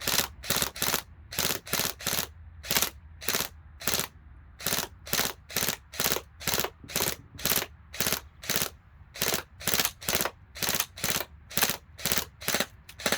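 ASG Scorpion EVO 3 A1 electric airsoft gun firing on semi-automatic, a quick string of about 28 single shots at roughly two a second as a full magazine is emptied.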